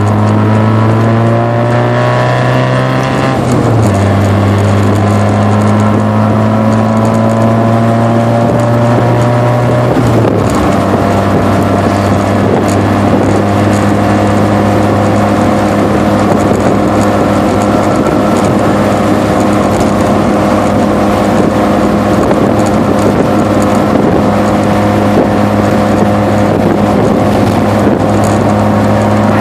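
Exhaust note of a 1.6-litre Mazda Miata's four-cylinder engine through a Flowmaster DBX muffler, heard from inside the cabin under partial throttle. The pitch drops at upshifts about 3.5 and 10 seconds in, then holds steady at a 3,000 rpm cruise.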